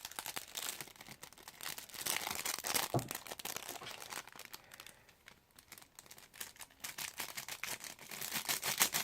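Plastic packaging of fine white craft glitter crinkling and rustling as it is handled and the glitter is poured out, in fast crackly bursts that ease off around the middle and pick up again near the end.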